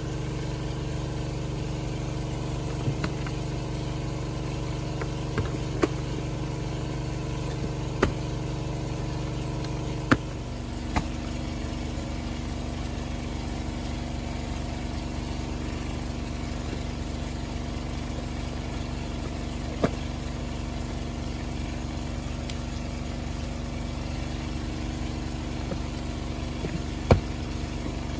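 Robin engine driving a water pump, running steadily; its note shifts slightly about ten seconds in. A few sharp knocks stand out above it, the loudest near the end.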